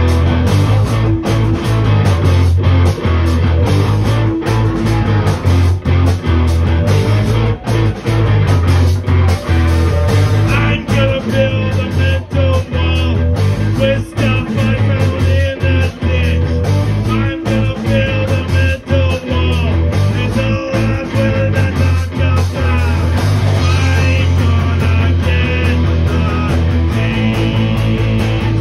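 Live punk rock band playing loudly: electric guitars, bass guitar and drum kit.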